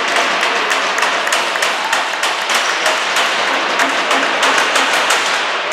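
Spectators applauding a goal, a dense patter of many hand claps.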